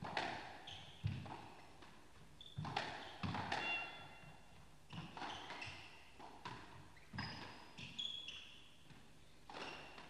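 Squash rally: the ball cracks off rackets and walls about every second, with short high squeaks from the players' shoes on the court floor between shots.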